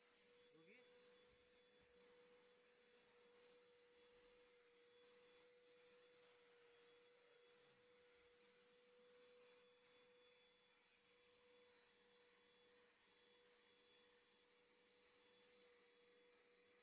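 Vacuum cleaner motor whine, turned down almost to silence, as a steady faint tone with a brief wobble in pitch about a second in and again near the middle.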